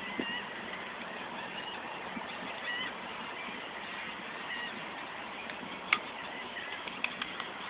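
Birds calling in short, high, repeated calls over steady background noise, with a sharp click about six seconds in.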